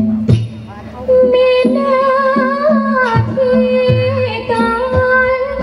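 Female likay singer singing long, wavering held notes in Thai folk-opera style over the ensemble's accompaniment, which has a regular low beat; the voice breaks off briefly and comes back in about a second in.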